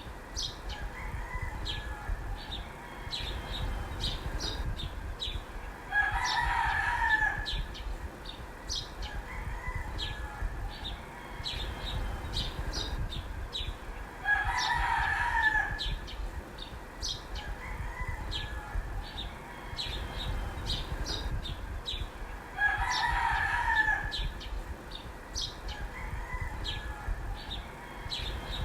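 A rooster crowing three times, about eight seconds apart, each crow lasting about a second and a half. Short high chirps go on between the crows.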